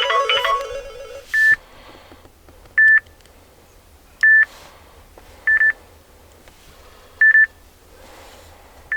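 Samsung Galaxy S4 ringtone previews: a melodic ringtone plays and cuts off about a second in, then a ringtone of single short high beeps follows, repeated about every one and a half seconds, six times.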